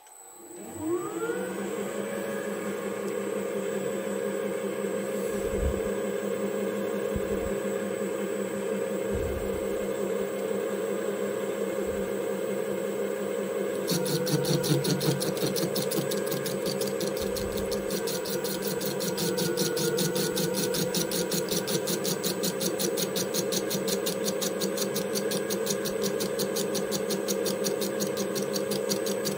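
DIY CNC lathe spindle starting up with a rising whine, then running steadily, with a few low thumps in the first half. About halfway through, the carbide tool starts turning the 3D-printed metal case and a fast, even ticking joins the hum.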